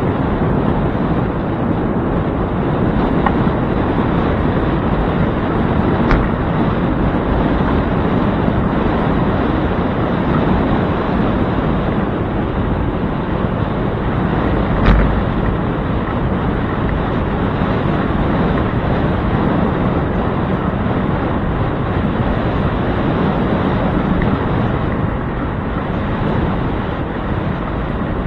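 Wind buffeting a handlebar-mounted camera's microphone on a moving bicycle, with road noise from the tyres. It is a steady rushing noise, broken by a couple of short knocks, the clearest about halfway through.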